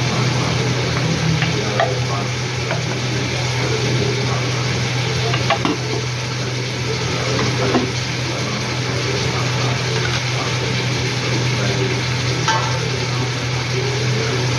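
Food sizzling and frying in a pot while a spoon stirs it, with a few scrapes and clicks of the spoon against the metal. A steady low hum runs underneath.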